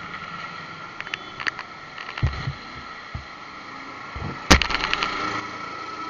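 Handling noise of a camera held against a motorbike's mirror: scattered knocks, rubs and low thumps, with one sharp loud knock about four and a half seconds in, over a faint steady hum.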